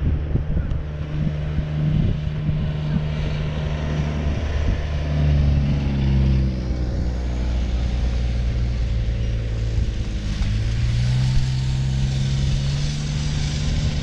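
An engine drones steadily, its pitch dropping about six seconds in and rising again about ten seconds in.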